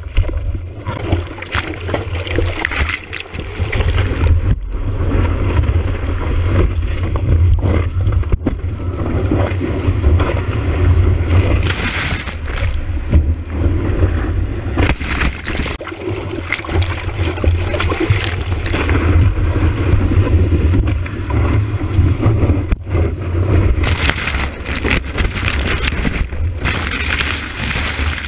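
Whitewater rushing and splashing over a surfboard-mounted action camera in its waterproof housing: a heavy, steady low rumble of water and wind buffeting, with louder bursts of spray washing over the camera about twelve seconds in and again near the end.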